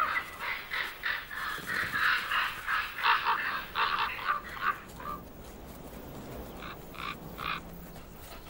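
Common ravens calling in a rapid run of short, harsh croaks, which thins out after about five seconds to a few scattered calls.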